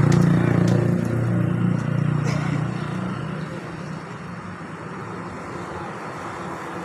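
A motor vehicle's engine running with a steady low hum, loud at first and fading away over the next few seconds. A few short knocks come in the first couple of seconds.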